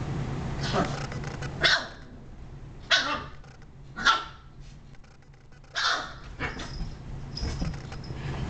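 Shiba Inu barking: single sharp barks about a second apart, then a few quieter ones near the end.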